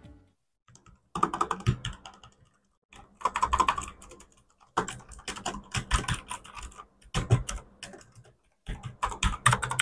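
Typing on mechanical keyboards in about five short bursts of rapid key clicks with brief pauses between: first the smoother, less noisy linear red switches of a Portronics Hydra 10, then the tactile, clickier blue switches of a second keyboard.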